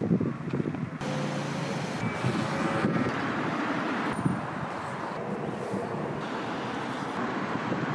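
City street traffic noise, cars passing, with the background changing abruptly about once a second as short clips are cut together.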